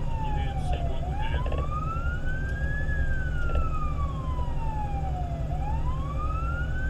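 Fire engine's siren on a slow wail, gliding up and then slowly down about once every four and a half seconds, over the steady low rumble of the moving truck.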